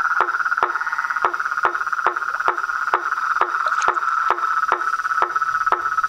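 Night chorus of frogs and toads at a pond: a continuous high trill with sharp calls repeated about twice a second over it, each call dropping quickly in pitch.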